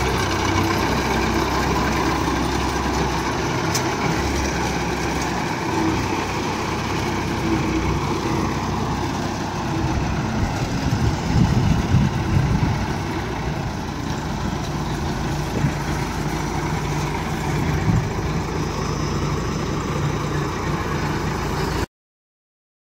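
Diesel engine of an asphalt paver running steadily, briefly louder and rougher about ten to twelve seconds in, then cutting off suddenly near the end.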